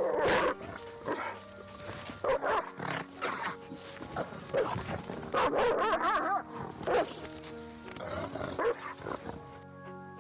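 A dog gives a string of short whines and yelps with wavering pitch, heard over background music with steady held notes.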